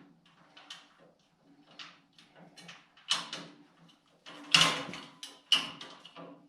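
Metal tool box and cart parts and hardware being handled and fitted: irregular clicks, knocks and clanks, the loudest a few seconds past the middle.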